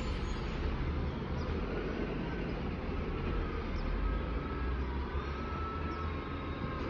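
Peterbilt 320 garbage truck's diesel engine running as it drives away down the street: a steady low rumble with a faint whine that drifts up and down in pitch.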